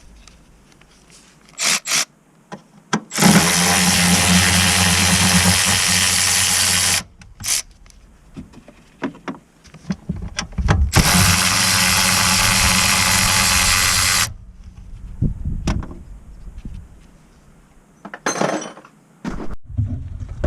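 A power tool runs in two long bursts of about four and three and a half seconds, with short clicks and knocks of tools between and after them.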